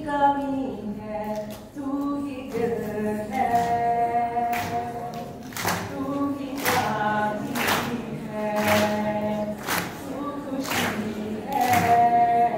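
A young woman singing a slow melody into a microphone, holding long notes, with acoustic guitar accompaniment. Sharp strummed accents come about once a second.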